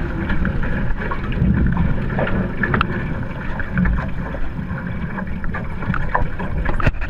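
Wind buffeting the microphone and water rushing along the hulls of a Hobie Tiger Formula 18 catamaran sailing at speed, steady throughout. Scattered small splashes and ticks, with one sharp click near the end.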